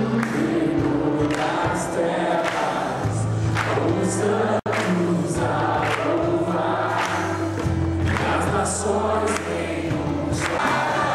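Music: a Christian song with choir-style singing over sustained bass notes. The sound breaks off for an instant about four and a half seconds in.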